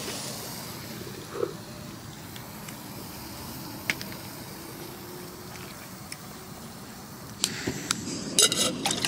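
Faint steady outdoor background, then in the last second and a half a run of sharp clicks and short hissing bursts as a gas lighter is worked over a remote-canister camping stove to light it.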